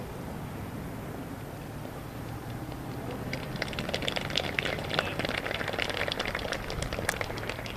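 Small crowd of spectators clapping, starting about three seconds in and dying away near the end.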